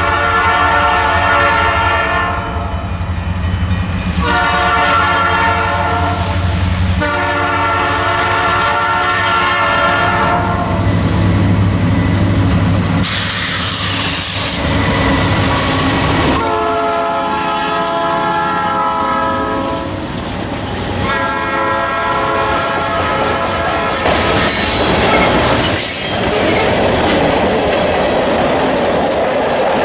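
Canadian Pacific diesel freight locomotive blowing its multi-chime air horn in a series of long blasts at a grade crossing, with the diesel engine rumbling underneath. About halfway through the locomotive passes close by, and the cars follow, rolling past with wheel clatter.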